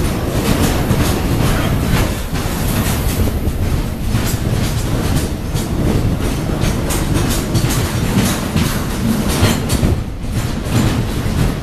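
Freight train of container flat wagons rolling past close by, its steel wheels clattering over the rail joints in a repeating clickety-clack over a steady rumble.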